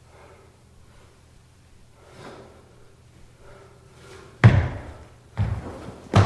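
Feet stamping on a wooden floor during a Choy Li Fut kung fu form: three heavy thuds with a short boom after each, the first about four and a half seconds in and the other two close behind near the end.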